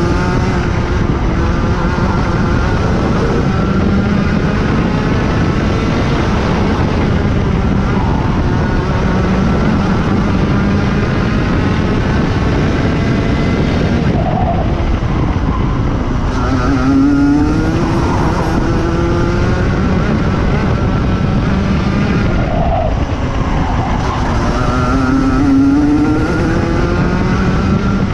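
Racing kart engine at race pace, heard from on board the kart. Its pitch keeps rising and falling through the lap, sagging twice as it slows for corners and climbing again as it accelerates out.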